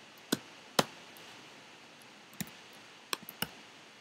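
Computer keyboard keystrokes: about six sharp, separate key clicks at irregular gaps, two near the start and a quick run of three near the end.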